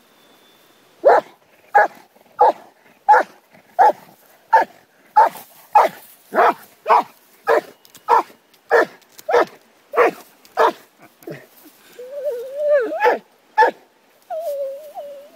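A dog giving a run of short, evenly spaced barks, about three every two seconds, then a wavering whine near the end.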